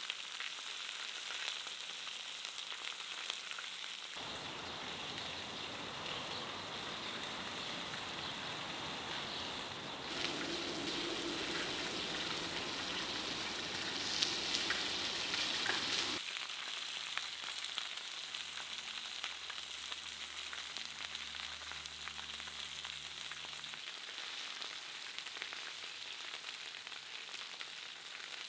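Lamb rib chops, potatoes, mushrooms and peppers sizzling as they fry on a steel saj pan. It is a steady hiss that grows louder for a few seconds in the middle.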